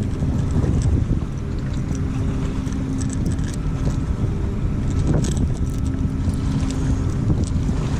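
Wind buffeting the microphone on a fishing boat, with a low steady hum underneath and scattered light clicks.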